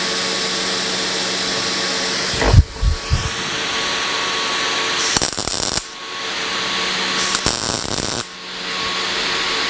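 Two short MIG tack welds on thin 18-gauge sheet steel: bursts of arc crackle about a second long, the first about five seconds in and the second about seven and a half seconds in. A steady machine hum runs underneath, and a single loud knock comes about two and a half seconds in.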